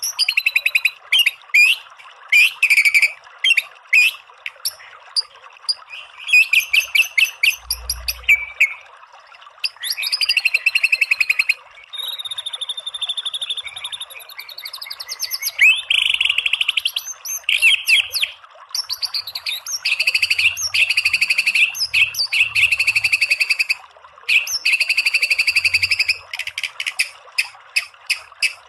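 White-rumped shama (murai batu) singing loudly in phrases of rapid-fire repeated notes, the 'tembakan' bursts, broken by short pauses, with a drawn-out whistle sliding downward about halfway through. Beneath it runs a steady hiss of trickling stream water.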